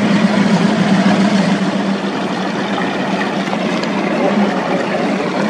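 Powerboat engines running at low cruising speed as the boats pass: a steady, loud engine drone with a strong low hum.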